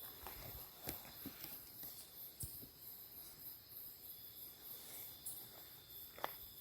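Night insects chirring steadily at a high pitch, with scattered soft knocks and rustles close by.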